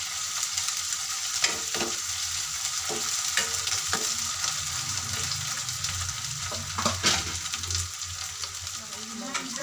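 Chicken and onions frying in oil in a non-stick wok, sizzling steadily, with a few short sharp clicks scattered through.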